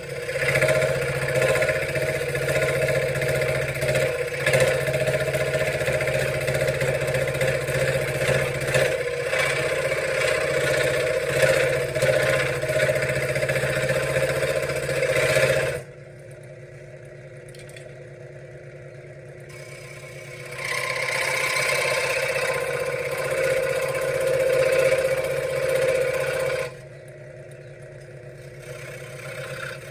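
Benchtop scroll saw running and cutting wood, a steady buzzing hum. It goes much quieter about 16 seconds in, starts up again about four seconds later, and goes quiet again near the end.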